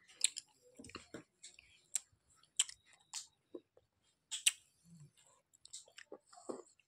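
A toddler chewing fried fish with her mouth: irregular small wet clicks and smacks, a few of them sharper than the rest.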